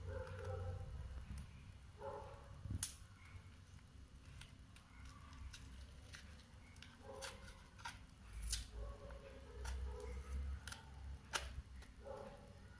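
Faint handling of a small plastic packet from a toy kit being opened: scattered sharp clicks and crinkles, a few louder than the rest, over a low rumble.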